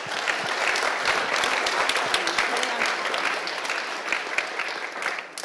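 Audience applauding: a dense patter of many hands clapping, tapering off near the end.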